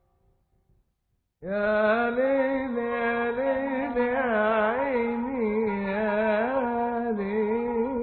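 Background music: after about a second and a half of near silence, a single melody line comes in suddenly and is held, its pitch wavering in small ornamental turns.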